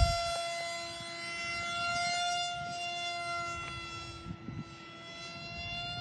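RC model jet's motor making a steady high whine in flight, dipping in level about four seconds in and swelling again with a slight rise in pitch near the end.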